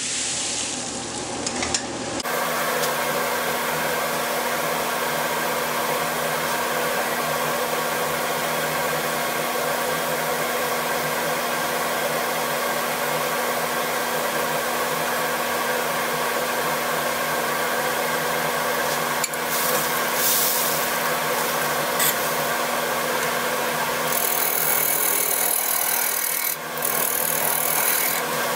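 Wood lathe running with a steady motor hum while a turning tool cuts into a spinning Siberian elm bowl blank, giving a harsh, continuous scraping. The scraping turns brighter and harsher in the last few seconds.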